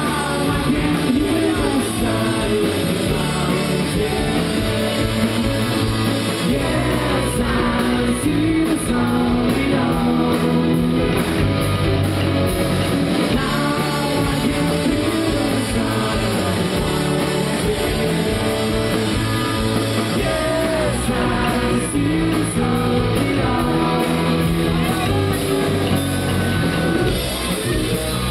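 Live rock band playing a song, a singer over electric guitar, bass and drums.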